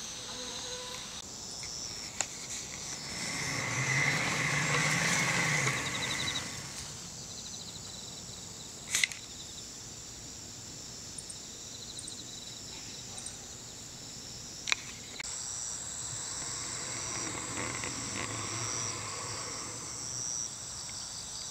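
Summer outdoor ambience with insects chirring steadily, and a vehicle passing about three to six seconds in, with a fainter one later. Two sharp clicks about nine and fifteen seconds in.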